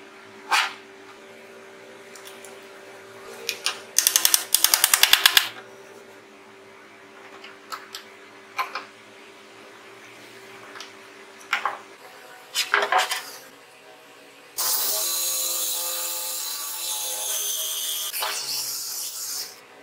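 Power drill boring a hole into the edge of thick plywood, running steadily for about five seconds near the end. Before it come scattered knocks and clicks and a brief fast rattle.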